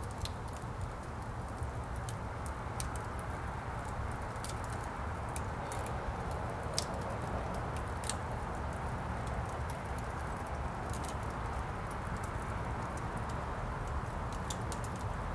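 A log fire burning in a fireplace: a steady low rush of flame with frequent, irregular crackles and pops.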